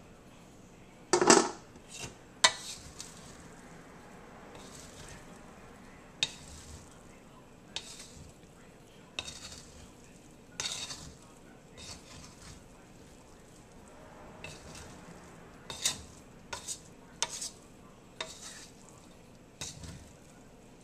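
Wooden spatula stirring and scraping fried rice around a metal wok, with irregular knocks and scrapes against the pan, the loudest about a second in, over a faint steady frying sizzle.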